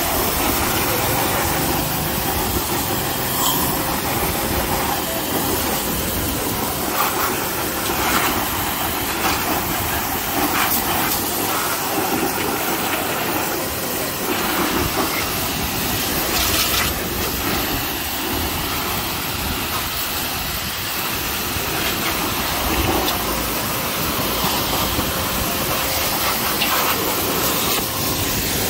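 High-pressure washer jet spraying water onto a motorcycle's fairing and wheel: a steady, loud hiss.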